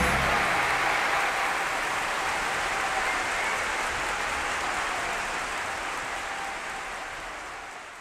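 Live audience applauding, a dense even clatter of clapping that fades steadily away toward the end. The last held notes of the orchestra die out in the first moment.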